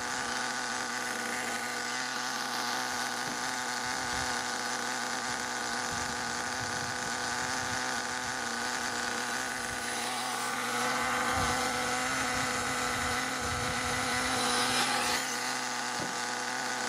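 Nitro two-stroke glow engine of an HPI Savage XL 5.9 RC monster truck running steadily at a standstill on its break-in tank, a high, even drone. From about ten seconds in it grows louder and harsher for a few seconds, then settles back.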